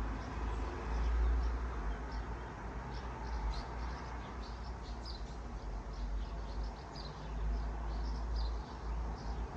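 Swallows twittering: many short, high chirps scattered throughout, over a steady low rumble.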